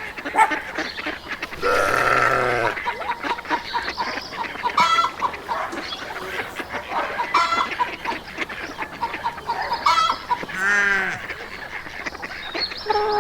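Farmyard animals calling over one another, mostly poultry giving short repeated calls, with two longer drawn-out calls, one about two seconds in and another near eleven seconds.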